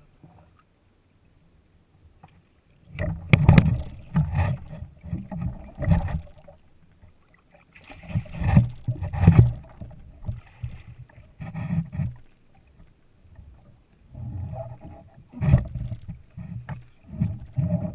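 Knocks, clatter and rumbling handling noise on a kayak, coming in three clusters of a few seconds each after a short quiet start.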